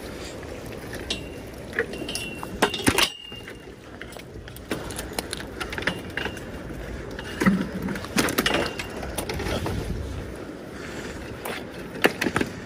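Metal bicycle clanking and rattling as it is dragged out of the water, with a series of sharp knocks, several ringing briefly.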